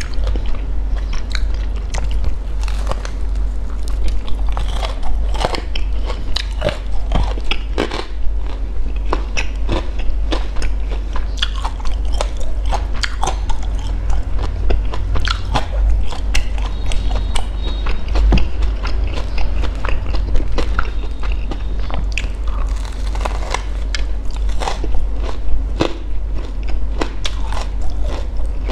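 Close-miked biting and chewing of a crispy sesame-coated fried glutinous rice ball (bánh cam): crunches and mouth clicks come again and again as the crust is bitten and chewed, over a steady low hum.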